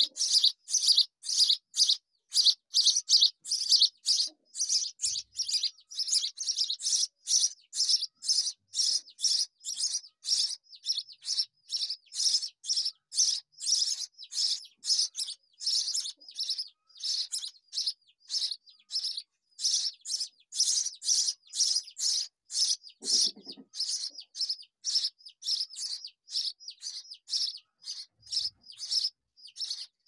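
Sparrow nestlings giving begging calls: a steady, unbroken run of short high chirps, about two or three a second, the sign of chicks calling to be fed.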